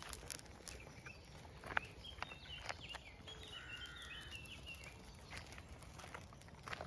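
Faint scattered crunches of paws and footsteps on gravel, with a bird chirping a run of short high notes in the background around the middle.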